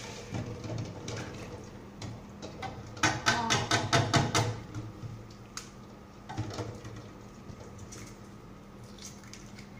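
Boiled eggs being lifted out of a metal pot of water by hand and set into a plastic bowl: water sloshing and eggs knocking against the pot, with a quick run of clatter about three seconds in.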